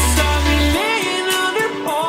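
Background pop song with a sung melody over instruments; the deep bass drops out under a second in.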